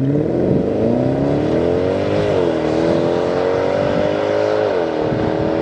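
Mercedes R63 AMG's 6.2-litre V8 accelerating hard: the engine note climbs, drops sharply about two seconds in as the automatic gearbox changes up, climbs again and drops once more near the end.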